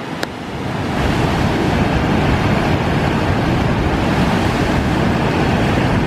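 Elbow Falls' white water rushing over the rocks: a loud, steady wash of falling water that swells over the first second and then holds.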